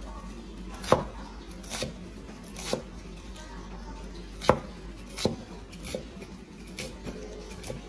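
Cleaver chopping a pile of leafy greens on a wooden chopping board: about eight separate chops at an uneven pace, roughly one a second.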